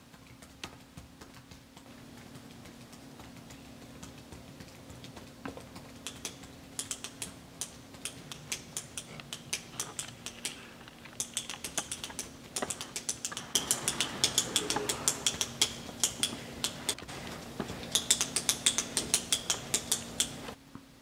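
Typing on a MacBook laptop keyboard: scattered keystrokes at first, then fast runs of clicking that grow louder toward the end and stop abruptly.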